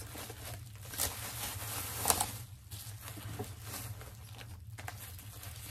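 Rustling and handling noise of packaging around graded comic slabs being unpacked, with a couple of sharper clicks about one and two seconds in.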